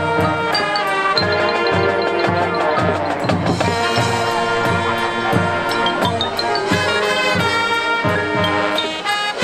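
High school marching band playing: held horn chords and mallet-percussion notes over a steady drum beat of about two strokes a second.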